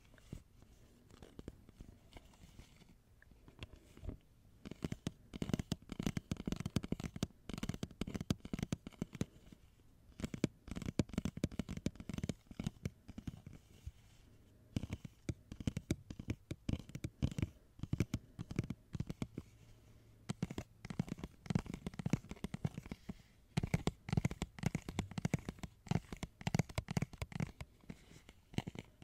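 Close-miked ASMR trigger sounds: rapid clusters of clicks and crackles with low muffled thumps, coming in bursts separated by quieter pauses.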